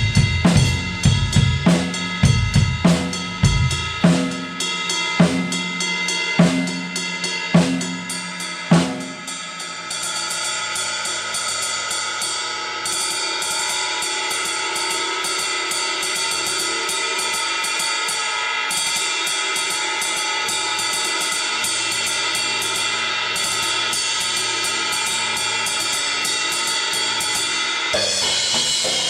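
Acoustic drum kit (Tama Superstar Hyperdrive Maple with Meinl Classics cymbals) being played. For the first nine seconds there are hard drum hits with low booming drum strokes. Then it turns to steady, rapid cymbal playing that builds a continuous cymbal wash.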